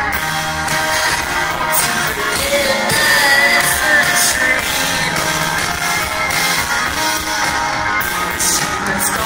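Live rock band playing: electric guitars, bass guitar and drums, with a singing voice over them.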